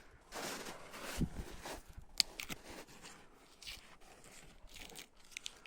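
Rustling and crunching of twigs and forest litter, with scattered small cracks and one sharp snap about two seconds in.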